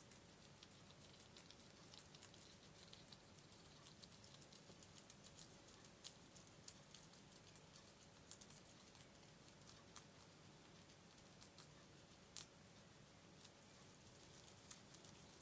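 Guinea pigs chewing fresh basil leaves: faint, irregular crisp clicks and crunches, several a second.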